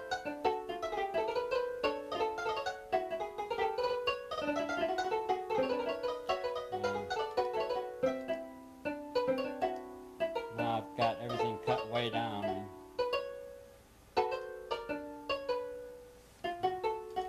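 Computer-generated algorithmic music on a synthesizer: several voices play repeating patterns of short notes that start sharply and fade, with a random share of each voice's notes dropped by a note-density setting. A cluster of lower notes comes in about eleven seconds in, and after that the texture grows sparser.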